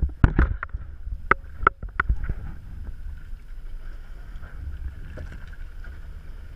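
Water splashing and slapping as a swimmer moves off beside a small motorboat, with several sharp slaps in the first couple of seconds, then a steady low rumble and faint hum for the rest.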